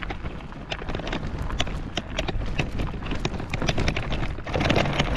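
Irregular crunching and clicking of travel along a dirt path, typical of footsteps. About four and a half seconds in, a louder steady noise with a low hum comes in.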